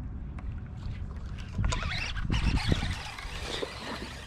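A small hooked bass splashing at the water's surface as it is reeled in on a fishing line. The splashing is loudest from about a second and a half in until nearly three seconds.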